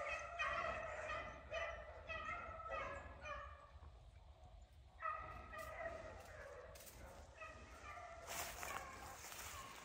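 A pack of beagles baying in quick, overlapping bawls, about two to three a second, while running a rabbit's track. The voices break off briefly around four seconds in, then pick up again and thin out near the end.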